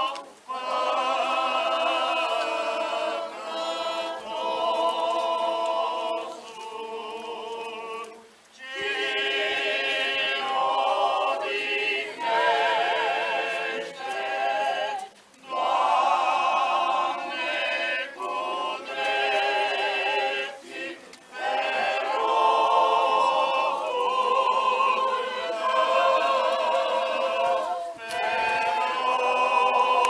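Men's choir of Orthodox priests singing funeral chant a cappella, in sustained, slow phrases with brief pauses between them.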